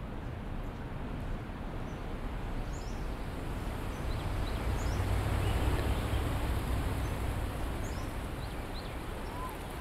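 Outdoor nature ambience from a film soundtrack: a steady airy hiss with scattered small bird chirps. A low rumble swells about halfway through and then fades.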